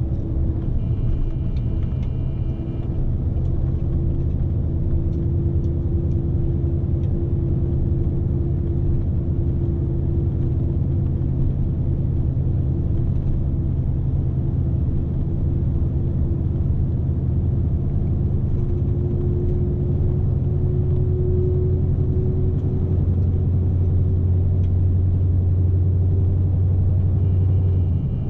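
Scania S520 truck's 16-litre V8 diesel heard from inside the cab, running steadily with a deep drone and tyre and road rumble under load. The drone grows a little stronger over the last few seconds, and a short high beep sounds about a second in.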